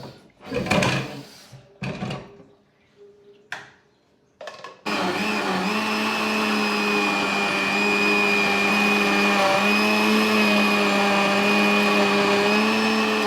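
A few short knocks and clatters, then an electric kitchen blender switches on about five seconds in and runs steadily at one speed, blending ginger, garlic and onion, until it cuts off at the end.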